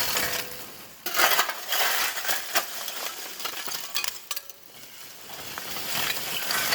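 Hard objects clinking and rattling over a sizzling hiss, with a run of sharp clinks starting suddenly about a second in.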